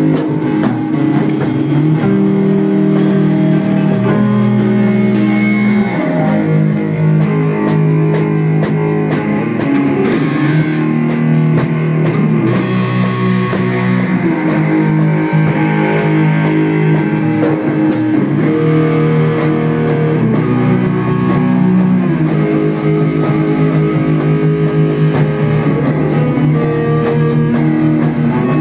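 Stoner rock band playing loudly: electric guitar, bass guitar and drum kit, with sustained low guitar and bass notes over steady cymbal and drum hits.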